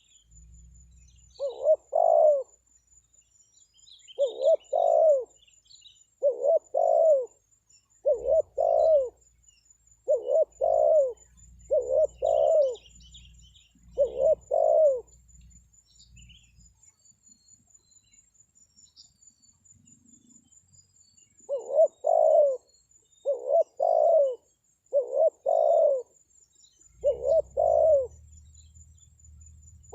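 Spotted dove (tekukur) cooing: a series of double coo notes, one pair about every two seconds, with a pause of several seconds midway before the coos resume. It is a lure call meant to draw wild doves to answer.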